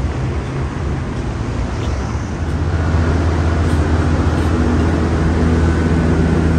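Road traffic noise with a vehicle engine's steady low hum, growing louder about halfway through.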